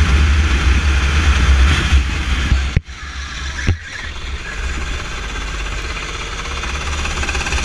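Go-kart engine running at speed, heard from an onboard camera, with heavy low rumble from wind on the microphone for the first few seconds. The sound dips sharply twice about three seconds in, then carries on steadier and quieter.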